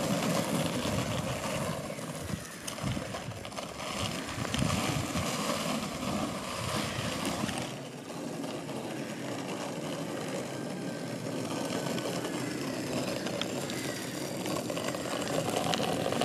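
Small cruiser skateboard's wheels rolling on asphalt: a steady rolling noise, with a few low knocks a couple of seconds in and a change in its texture about halfway through.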